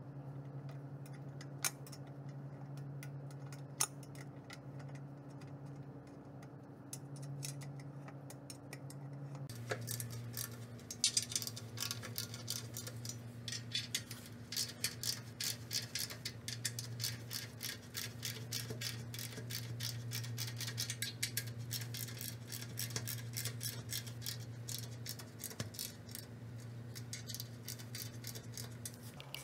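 A hand screwdriver driving bolts into the brackets of an aluminium extrusion frame. It gives a few scattered clicks at first, then fast, dense ticking clicks from about a third of the way in, over a steady low hum.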